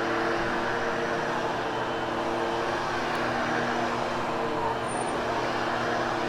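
Hoover HushTone vacuum cleaner running steadily over carpet: an even motor whir with a steady low hum underneath, post-vacuuming and grooming freshly cleaned carpet.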